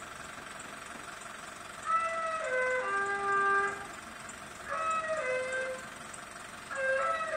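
A scrap collector's recorded call blaring from a loudspeaker on his vehicle: a short phrase of stepped notes falling in pitch, played three times about every two and a half seconds.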